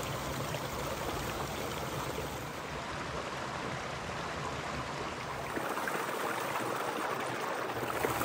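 A small mountain brook trickling and splashing over mossy rocks in a steady rush of water, a little louder over the last few seconds.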